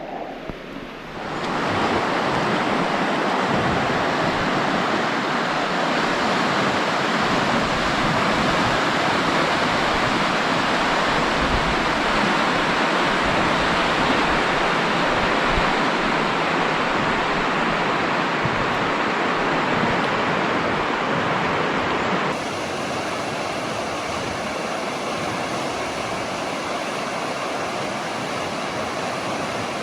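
Steady rushing noise of wind and water. It starts abruptly about a second in and drops slightly in level, changing character, a few seconds before the end.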